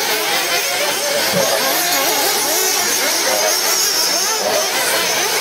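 Several radio-controlled 2WD model buggies racing on a dirt track, their small motors whining and rising and falling in pitch as they accelerate and brake, with spectators' chatter underneath.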